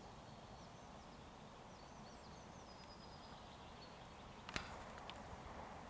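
Near silence: faint outdoor hiss with a bird's faint high chirps. A single sharp click about four and a half seconds in is the loudest moment.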